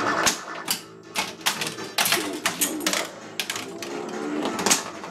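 Williams The Getaway pinball machine in play: flippers and playfield solenoids clacking in repeated sharp knocks at irregular intervals, with the game's electronic sound effects running underneath.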